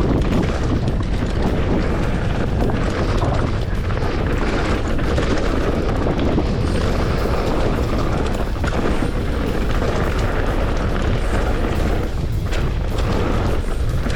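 Wind buffeting the microphone with a heavy, steady rumble, over the tyres and frame of a 2023 Specialized Enduro S-Works mountain bike rattling over rough rock at high speed.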